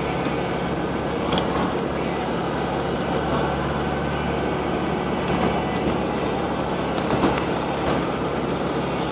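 Steady car engine hum and road noise inside the cabin while driving on a snow-covered road, with a sharp click about a second and a half in and another about seven seconds in.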